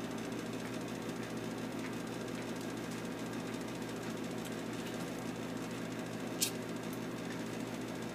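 A steady low mechanical hum, with one short click about six and a half seconds in.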